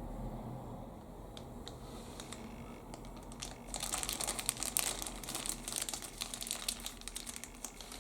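Crinkling and crackling of packaging being handled: a few isolated clicks, then from about three and a half seconds in a dense, busy crackle that fades near the end.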